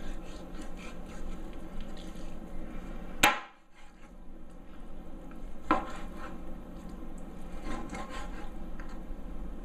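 Large kitchen knife cutting raw chicken breast on a plastic cutting board: light taps and scrapes of the blade, with two sharp chops against the board, about three seconds in and again near six seconds. A low steady hum runs underneath.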